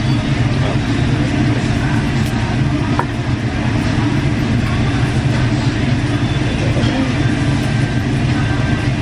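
Steady hum and rush of restaurant ventilation, unchanging throughout, with a few faint clicks of a utensil.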